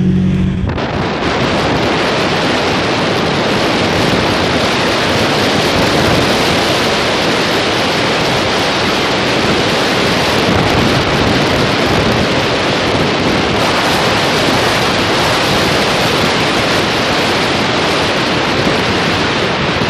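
Wind rushing in through the open windows of a moving car and buffeting the microphone: a loud, steady roar. A car engine hum is heard for under a second at the start before the wind drowns it.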